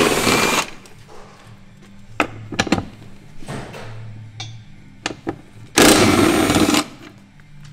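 A pneumatic wrench on a long extension runs in two bursts of about a second each, one at the start and one about six seconds in, undoing the gearbox bracket bolts on a Nissan Skyline R33. Light metallic clicks of the socket and tools fall between the bursts.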